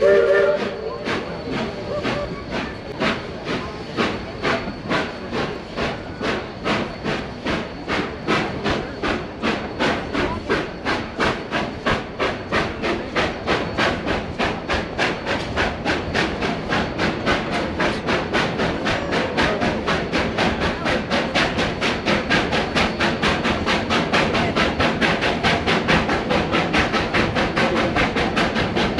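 Steam locomotive working, its exhaust chuffing in an even beat that quickens and grows a little louder, after a brief whistle note at the very start.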